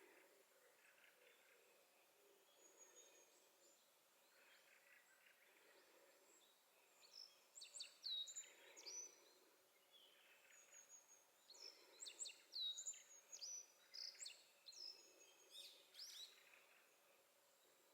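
Black-faced bunting singing: short, quick phrases of high, sharply sliding notes. The phrases begin about seven seconds in and come again several times.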